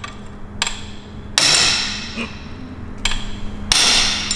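Hammer blows on a long steel tool, four strikes with a metallic ring, the second and fourth the loudest.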